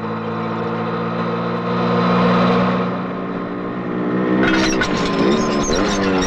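Auto-rickshaw engine running steadily as it drives along, then about four seconds in a rattling mix of auto-rickshaw and motorcycle engines whose pitch dips and rises again several times.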